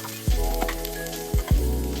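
Food sizzling as it fries in a pan, under soft background music; two low notes are struck, one just after the start and one about a second and a half in.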